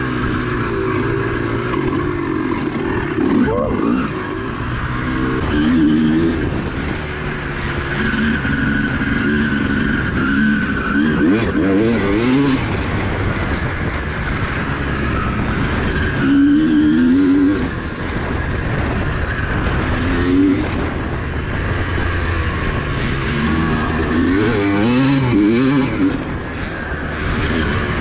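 Honda CR250R two-stroke single-cylinder engine heard from on board while it is ridden hard. The pitch climbs and drops over and over as the rider works the throttle through the gears, over a steady rush of noise.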